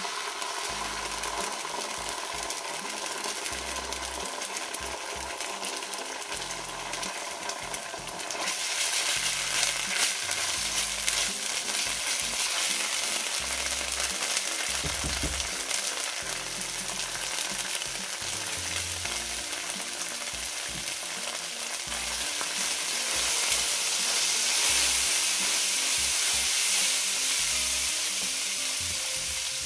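Minced garlic and ketchup frying in oil in a nonstick pan, sizzling steadily while a silicone spatula stirs them around. The sizzle grows louder about eight seconds in.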